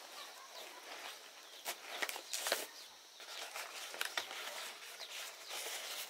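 Large fresh green leaves rustling and crackling as they are handled and pinned together with small stick splinters, in irregular short crackles and clicks.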